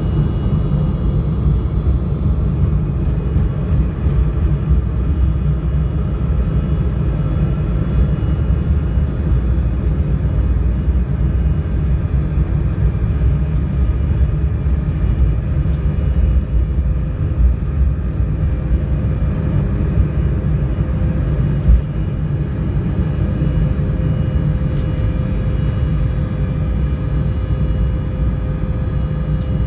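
Cabin noise of an Embraer E175 on its takeoff roll: the CF34 turbofans at takeoff thrust and the wheels on the runway make a loud, steady rumble with a faint whine above it. A single knock comes about 22 seconds in, and a steady hum tone rises out of the rumble near the end as the jet lifts off.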